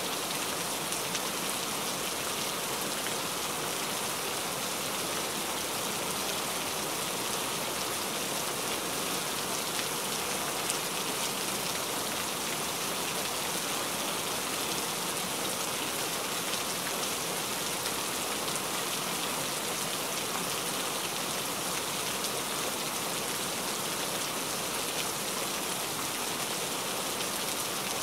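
Steady rain: an even hiss of many small drops falling without a break.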